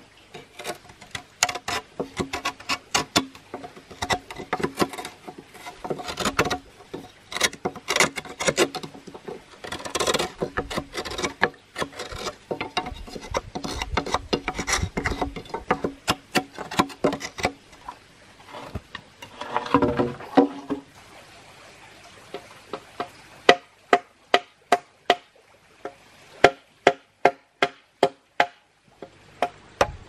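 Large knife chopping and carving holes into hollow green bamboo tubes: many quick knocks with a hollow wooden ring and some scraping. Near the end come evenly spaced sharp chops, about two a second.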